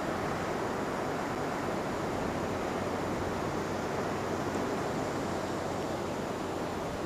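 Steady rushing wash of sea surf and wind on the microphone, with no distinct train engine sound standing out.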